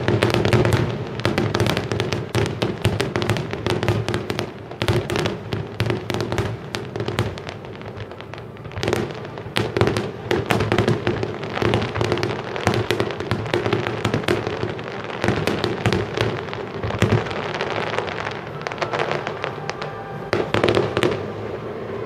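Fireworks finale: a dense, nonstop barrage of bangs and crackles from many shells bursting at once, easing off near the end.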